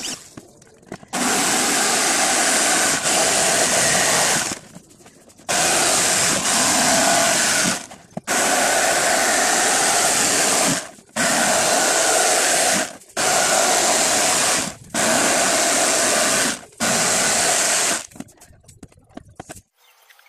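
An electric power tool running in seven bursts of about two to three seconds each, switched off briefly between runs.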